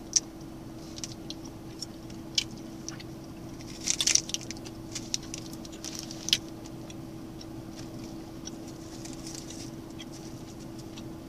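Plastic wrapper of a salami snack stick crinkling and crackling as it is torn open and the stick is pulled out: scattered sharp clicks, the densest burst about four seconds in. A steady low hum runs underneath.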